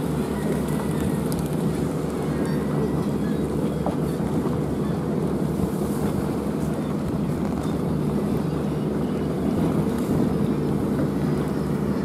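Engine of a rigid inflatable boat running steadily under way, with wind and water rush.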